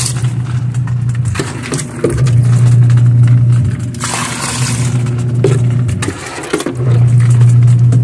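Washing machine on its wash cycle: the motor hums in spurts of a second or two with short breaks as the agitator works, and water churns in the tub.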